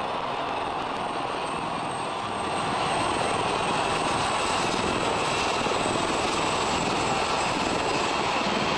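A formation of military helicopters flying low overhead, their rotor and engine noise blended with the roar of a large cheering crowd below. The sound grows louder about two and a half seconds in and holds.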